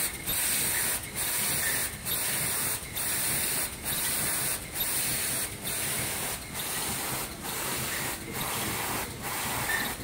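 High-speed KN95 mask production machine running: a steady hiss broken by a brief dip a little more than once a second, in a regular cycle.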